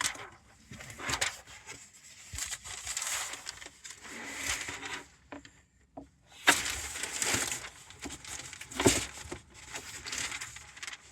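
Cardboard packaging rustling, scraping and crinkling as a flexible solar panel is unpacked from its box, with a couple of sharp knocks about six and a half and nine seconds in.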